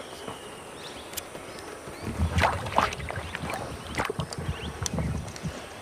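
Hippos in the river: water sloshing with scattered knocks and clicks, and a low rumbling that sets in about two seconds in.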